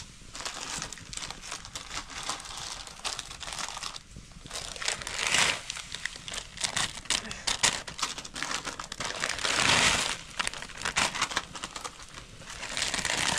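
Plastic packaging crinkling and crumpling as it is handled, with many small crackles and louder rustling swells about five, ten and thirteen seconds in.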